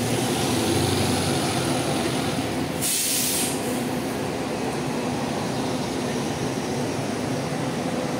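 A diesel coach bus engine running with a steady drone as the bus moves slowly past at close range. A short burst of air hiss comes about three seconds in.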